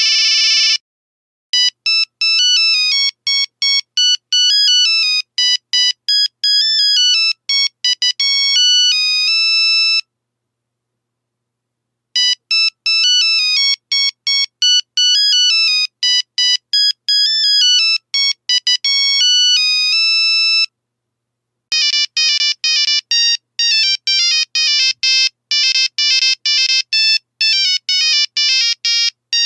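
Nokia 3310 monophonic ringtones, beeping one note at a time. One melody plays twice with a gap of about two seconds between, and a different, faster tune starts about 22 seconds in. A brief noisy burst comes at the very start.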